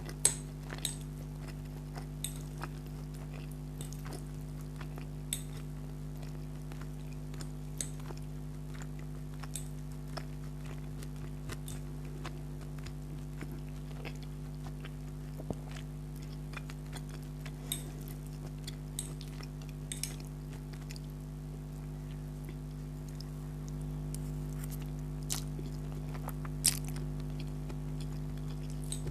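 Close-up chewing and wet mouth sounds of someone eating spicy chicken spaghetti, with scattered sharp smacks and clicks, over a steady low hum that gets a little louder near the end.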